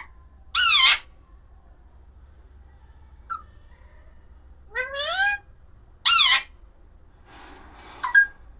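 Alexandrine parakeet (pahadi tota) giving loud, short, shrill calls with sliding pitch, about four of them, plus a brief chirp and a harsher rasping call near the end.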